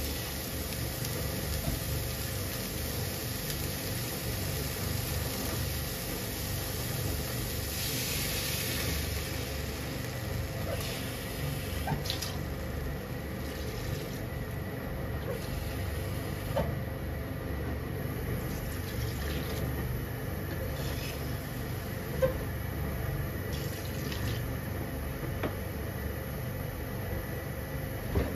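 Water poured into a hot frying pan of bean sprouts partway through, over a steady low hum, with a few sharp little ticks.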